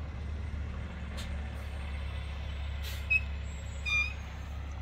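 A semi truck's engine running with a steady low rumble. Two short high beeps sound about three and four seconds in.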